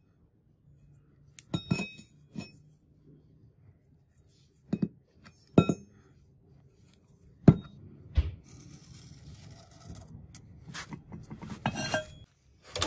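Flat steel plate, a cut-out axe-head blank, being handled and set against a concrete floor: a handful of sharp metallic clinks and knocks spaced a second or two apart, some ringing briefly, with light scraping between them.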